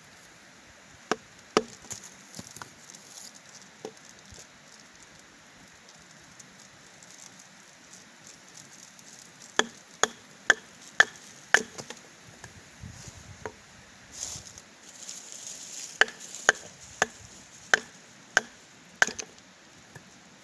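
Blows of a hand chopping tool striking wood: three sharp strikes about a second in, a run of five about half a second apart near the middle, and six more toward the end.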